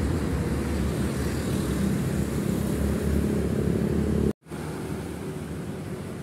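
Road traffic with a heavy truck's engine rumbling low as it passes close by. About four seconds in, the sound cuts out for a moment and comes back as quieter, steady traffic.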